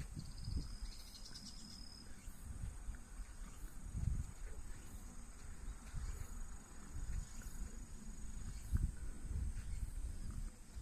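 Crickets trilling in several high, steady tones, one trill stopping about two seconds in and another shortly before the end, with irregular low rumbling underneath.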